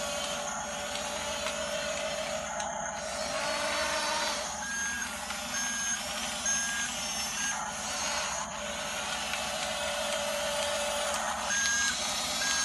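RC model bulldozer running with a steady motor and gear whine, and a reversing beeper sounding a series of evenly spaced beeps, roughly one a second, starting about five seconds in and again near the end: the machine is backing up.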